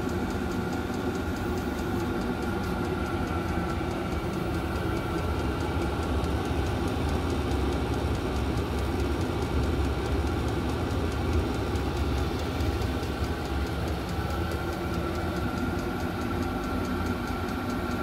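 Chinese diesel night heater running: a steady high whine from its blower fan over a low rumble, with no change throughout.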